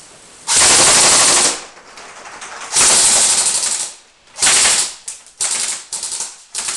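Colt M4 airsoft rifle firing on full auto: three bursts of about a second, a second and half a second, then a run of quick short bursts near the end.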